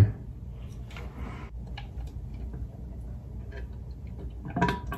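Faint scattered clicks and taps of plastic as a SodaStream syrup measuring cap is handled over a plastic carbonating bottle, with a louder short noise near the end as the cola syrup is poured from the cap into the bottle.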